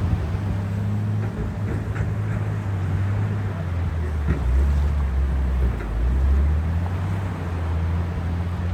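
Sea ambience: an even hiss of wind and water over a steady low rumble, without breaks or distinct wave crashes.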